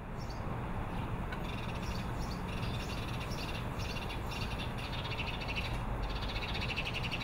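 Outdoor ambience: birds calling in short, repeated, buzzy bursts over a steady low rumble.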